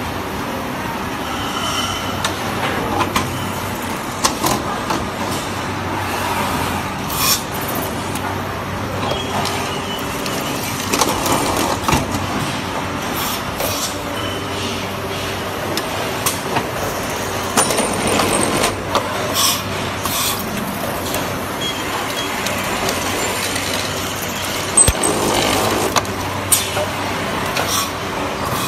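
Automatic LED panel light assembly line machinery running: a steady mechanical hum with scattered clicks and a few short hisses.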